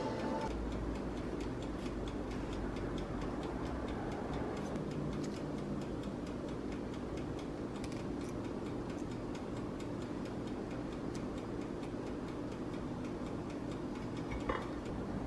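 Steady, even ticking over a low steady hum, with one sharper click near the end.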